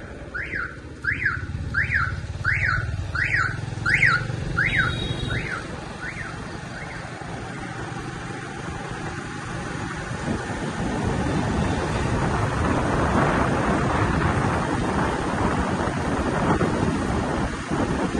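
A high chirping tone that rises and falls, repeating about every 0.7 s and dying away about six seconds in, over the low hum of the slowly moving vehicle the camera rides on. Road and wind noise then swell and run steadily.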